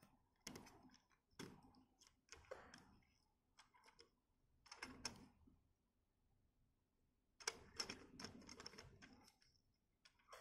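Faint, scattered clicks and taps of small plastic parts handled: a 1:18-scale action figure being posed and pressed into the seat of a plastic toy go-kart. The clicks come in short clusters, busiest about seven to nine seconds in.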